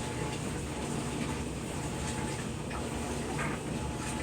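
Gas furnace running with a steady low rumble from its blower and burner, a few faint knocks over it.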